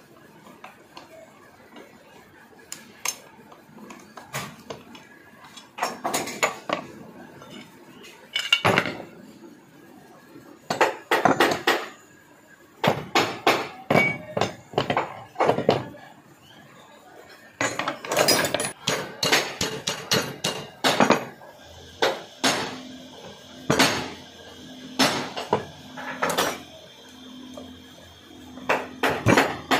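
Metal parts of a Bedford truck starter motor being dismantled on a workbench: irregular clanks, knocks and clinks of steel and cast housings, drive pinion and tools, sparse at first and coming in quick runs from about six seconds in.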